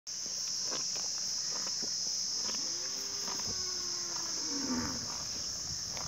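Cattle mooing once, a single call of about two seconds in the middle that slowly falls in pitch, over a steady high-pitched insect drone.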